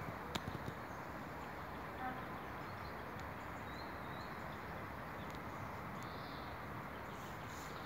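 Steady outdoor background noise with two faint, short bird chirps a little before the middle.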